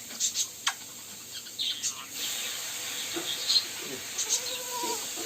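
Ringneck parrots chirping: several short, sharp calls in the first two seconds, then softer calls over a steady hiss.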